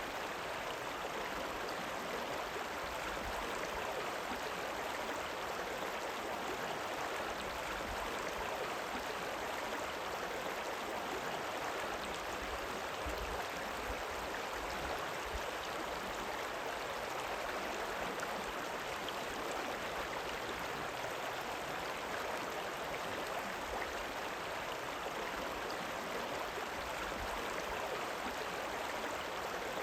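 River water rippling and running in a steady, even rush.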